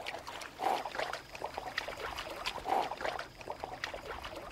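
A dog swimming with a wooden retrieving dumbbell in its mouth: uneven puffs of breath and small splashes of water as it paddles.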